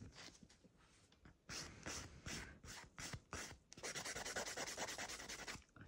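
Hand nail file rasping back and forth across a gel nail extension, shaping it. Quieter at first, then short strokes about three a second, turning into faster, near-continuous filing for the last couple of seconds.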